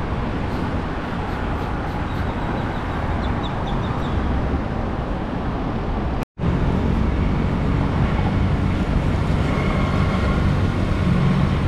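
Steady traffic and road noise: a continuous low rumble with hiss. The sound cuts out completely for a moment about six seconds in.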